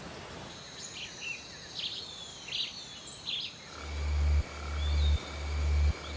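Rainforest ambience: several short bird chirps and whistles over steady high insect-like tones. About two-thirds of the way in, a loud, deep pulsing sound starts and repeats roughly every three-quarters of a second; each pulse swells and then cuts off sharply.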